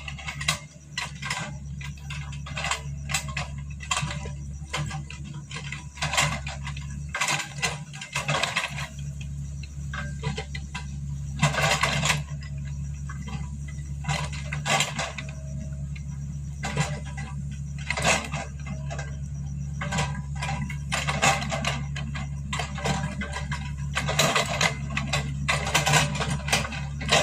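Mini excavator's engine running steadily, with frequent metallic clanks and knocks from the machine at work.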